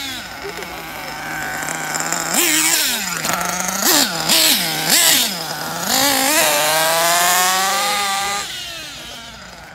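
Kyosho Inferno NEO ST 3.0 nitro RC truggy's small two-stroke glow engine idling steadily, then revved sharply about two and a half seconds in. Three quick throttle blips follow around four to five seconds, then a longer rising rev as it drives off, fading near the end.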